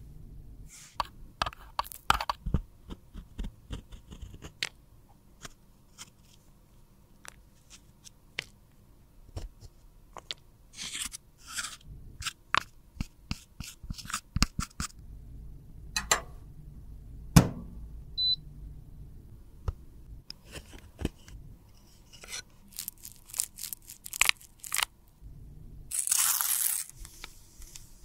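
A small metal spatula scraping and crumbling pressed powder out of a compact, making a run of crisp scratches, crunches and clicks. There is a longer scrape about two seconds before the end.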